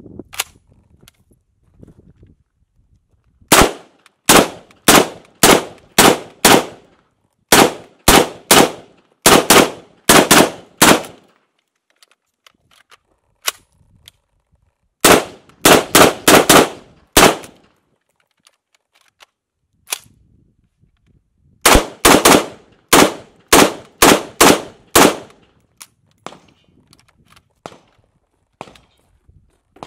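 Zenith Z43P semi-automatic rifle, an HK93 clone in .223, firing three strings of rapid shots: a long string of about a dozen, then two shorter quick strings. Each shot is a sharp crack with a short echo, and a few faint metallic clinks fall between the strings.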